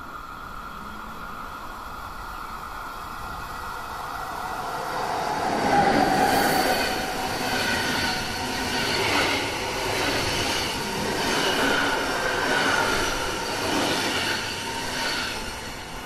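Electric passenger train of the Swiss Federal Railways passing close by on overhead-wire track. It builds as it approaches and is loudest about six seconds in, then swells and dips in a regular rhythm as the coaches roll past, and fades near the end.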